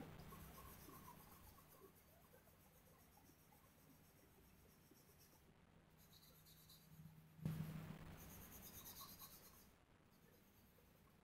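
Faint scratching of a pencil shading on drawing paper, louder for a couple of seconds about seven and a half seconds in.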